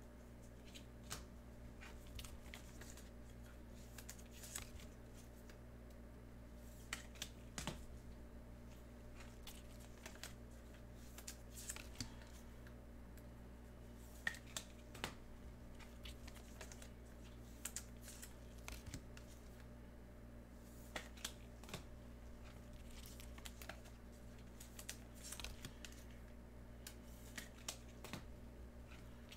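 Faint, irregular light clicks and taps with a little rustling, over a steady low hum.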